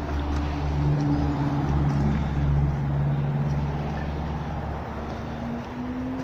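A road vehicle's engine passing: a low engine hum that is loudest about two seconds in, then fades, its pitch rising slightly near the end.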